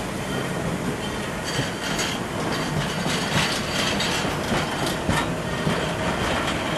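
Narrow-gauge passenger coaches rolling past at low speed: a steady rumble of wheels on rail, with a run of sharper clacks and rattles over the rail joints through the middle seconds.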